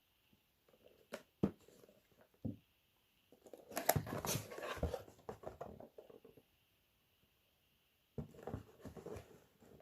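Hands handling a mobile phone and its parts: a few sharp clicks, a few seconds of rustling and scraping, then more clicks and rustling near the end.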